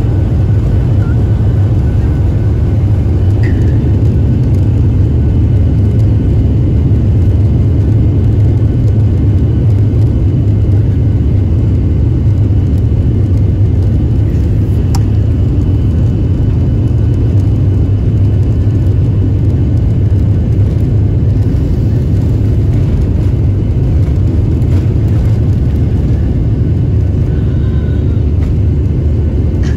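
Steady low rumble in the cabin of a jet airliner rolling on the runway, its wing-mounted turbofan engines running.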